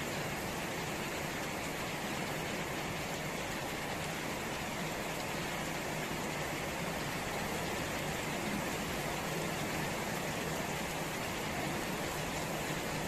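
Steady rain falling on plants and puddled ground, an even hiss that neither builds nor fades.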